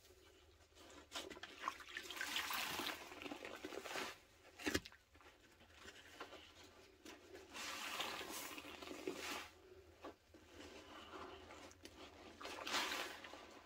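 Two porous bow-shaped sponges being squeezed and released by hand in a basin of sudsy Pine Plus cleaner: wet squelching and sloshing of liquid and foam, coming in several long surges, with one brief, sharper sound about midway.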